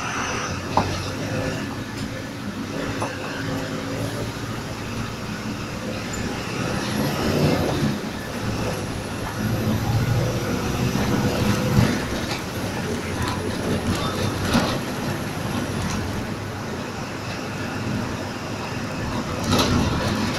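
City bus driving along an urban street, heard from the driver's seat: steady engine and road rumble, with a few sharp knocks and rattles from the body.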